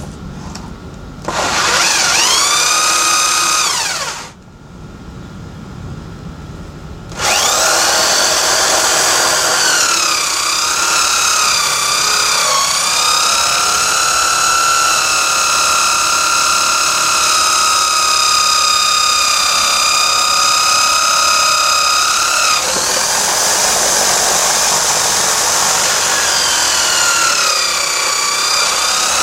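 Electric drill spinning the sanding drum of a homemade drum sander: it whines up to speed about a second in, winds down after about three seconds, then starts again around seven seconds in and runs steadily. Its pitch sags briefly a few times as the drum takes load from the wood being sanded.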